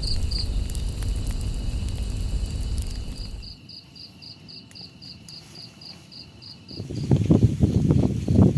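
Crickets chirping in an even, high-pitched pulse of about four to five chirps a second, over a low steady rumble. From about seven seconds in, louder irregular rustling noise covers the chirps.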